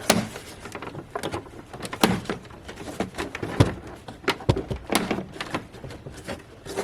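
Irregular plastic clicks and knocks as the BMW X5's air-intake snorkel is worked loose by hand.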